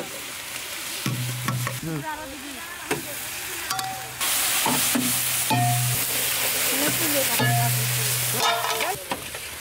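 Onion and spice pastes frying in hot oil in a large steel pan, hissing and sizzling while a long-handled metal spatula stirs and scrapes through them. The sizzle grows louder about four seconds in and eases near the end.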